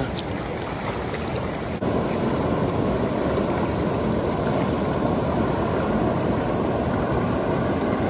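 Mountain river rushing over rapids and around boulders, a steady rush of water with a brief dip about two seconds in.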